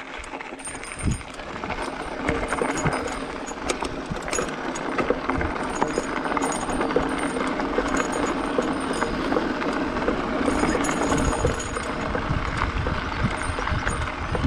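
Mountain bike rolling over a gravel road: tyres crunching on loose stones while the bike rattles, with many small clicks, getting louder over the first two seconds.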